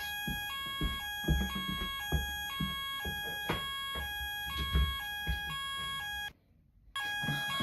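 Fire alarm sounders going off: a two-tone alternating alarm switching between a higher and a lower pitch about twice a second, over a steady continuous alarm tone. Footsteps thump underneath. The sound cuts out for about half a second near the end, then resumes.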